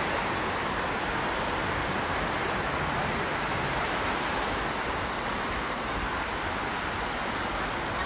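Small waves breaking and washing up a sandy beach, a steady hiss of surf.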